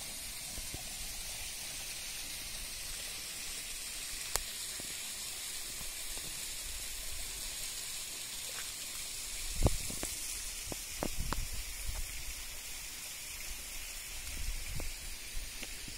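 Steady high hiss of outdoor daytime ambience on a wooded hillside, with a few soft knocks and low thumps from about ten seconds in.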